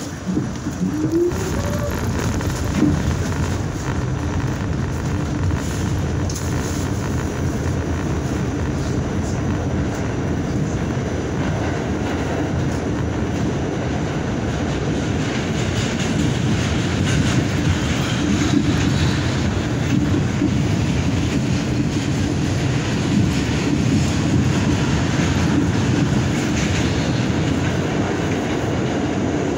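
R46 subway car heard from inside as it pulls out of the station and gathers speed into the tunnel: a steady rumble of wheels on rail, with a short rising whine about a second in. It grows a little louder about halfway through.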